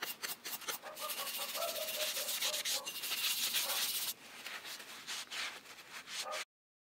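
Rapid dry scratching as something is rubbed briskly back and forth along a rusty steel chisel, with a faint squeak now and then. The rubbing turns quieter about four seconds in and cuts off abruptly near the end.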